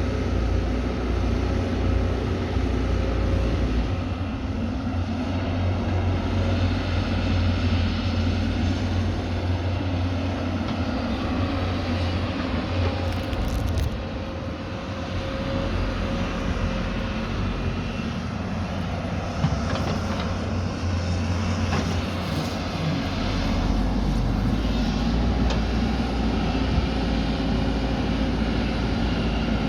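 Heavy diesel earthmoving machinery engine running steadily, its low drone rising and easing as the load changes. There is a single sharp knock a little past the middle.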